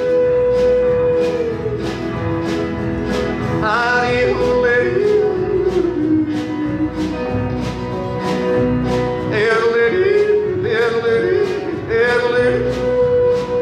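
Live country music between sung verses: electric and acoustic guitars keep a steady strummed beat under a long held melody note. A wavering sung phrase, like a yodel, rises over it a few times.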